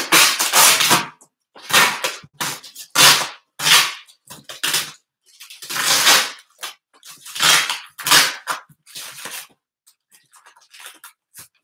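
Cardboard box being unpacked: a run of short, irregular ripping and scraping noises as packing tape and cardboard inserts are torn loose and pulled out, fainter and sparser near the end.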